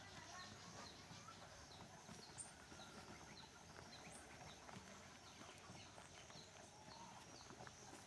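Faint outdoor garden ambience: a steady high insect-like drone with a short high chirp repeating about twice a second.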